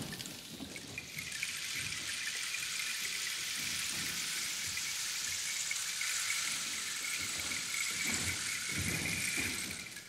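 Rainsticks: a steady trickling hiss of pebbles pouring through the tubes, swelling about a second in and falling away near the end.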